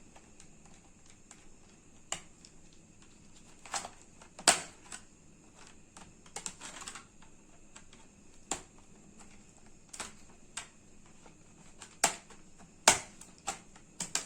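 Irregular sharp plastic clicks and knocks of a laptop's back cover being unclipped and handled, about a dozen in all, with a brief scrape around seven seconds in.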